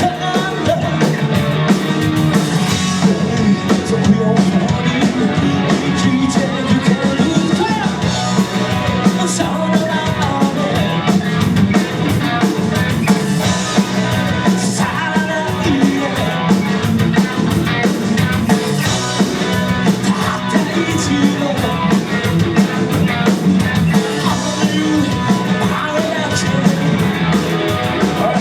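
Live rock band playing, with electric guitars, bass and a drum kit driving a fast beat, and some singing.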